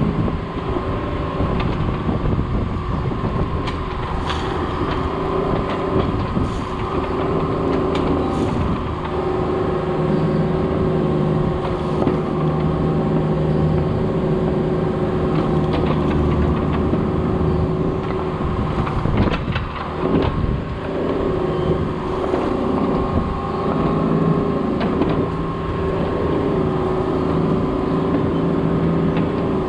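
Diesel engine of heavy work equipment running steadily, with a few sharp knocks along the way.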